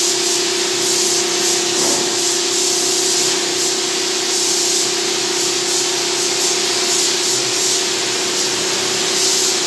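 Gravity-feed spray gun hissing steadily as compressed air atomises paint, the hiss swelling and easing slightly as the trigger is worked, over a steady low hum.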